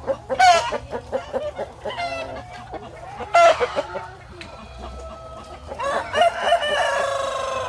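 Chickens clucking and calling in a coop, with short repeated clucks between loud calls about half a second and three and a half seconds in, and a longer, slowly falling call from about six seconds on.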